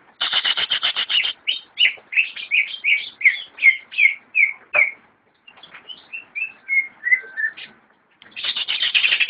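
Cucak ijo (green leafbird) singing. It opens with a fast rattling run of notes, then gives a string of clear downslurred whistles about three a second. After a short pause come more whistled phrases, and another fast run near the end.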